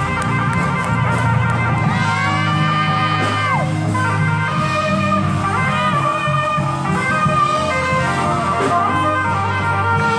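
Saxophone playing a gospel melody over full accompaniment, with a long held note that bends down about three and a half seconds in.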